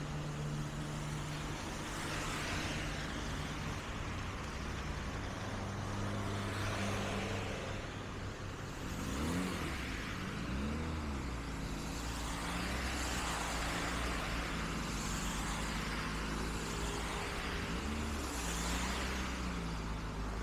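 Road traffic on a wet street: vehicle engines running low and steady, with several cars swishing past as their tyres hiss on the wet road surface. Twice an engine's pitch briefly rises and falls.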